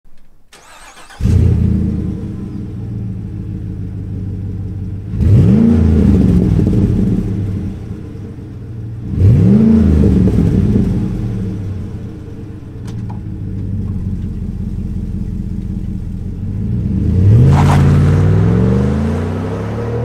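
Chevy/GMC 6.2L V8 running through an MPI Turbo Series stainless cat-back exhaust: it fires up about a second in and idles, is revved twice, rising and falling each time, then accelerates away through the gears near the end.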